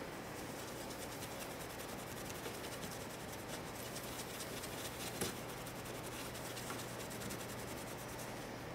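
Faint rubbing of a cleaner-soaked cloth wiped over a CPU's metal lid, lifting off leftover thermal grease, with one light tap about five seconds in.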